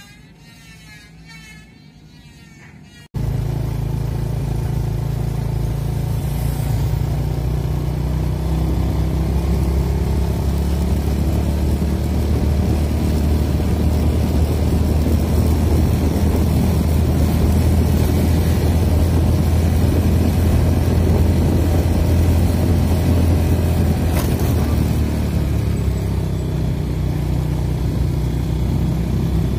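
Motor vehicle engine running steadily while driving along a road, starting abruptly about three seconds in with a strong low hum and road noise.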